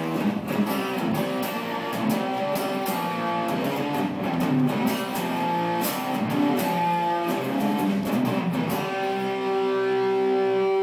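Handmade Stratocaster-style electric guitar playing a quick run of picked single notes, then one long held note from about nine seconds in.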